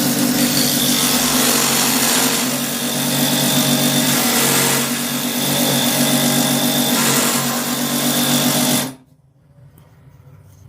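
Milwaukee M12 cordless die grinder running at speed while carving black walnut, its loudness dipping and swelling slightly as the bit cuts. It cuts off abruptly about nine seconds in.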